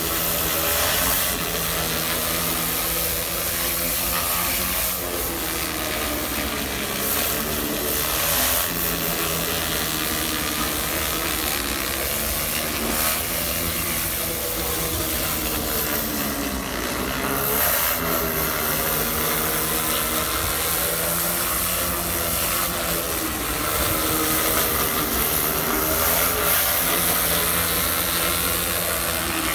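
Pressure-washer engine running steadily, its pitch wavering slightly, under the hiss of a rotary surface-cleaner head on a pole spraying clay roof tiles.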